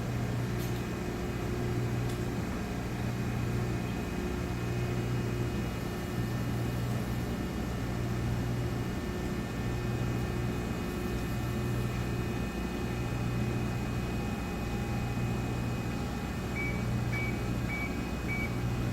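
Hydraulic pump and motor of an Amada RG-80 press brake running with a steady low hum that swells and dips every second or two. Four short high beeps come near the end.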